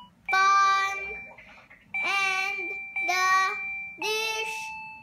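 A young girl singing one note at a time along with the electronic beeping tones of a toy piano songbook's keyboard, four notes about a second apart.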